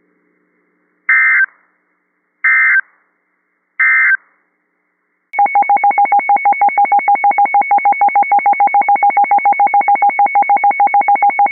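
NOAA Weather Radio alert tones: three short screechy bursts of SAME digital header data, about a second and a half apart. Then a fast electronic alarm beeping about eight times a second, the alert tone that announces a new warning.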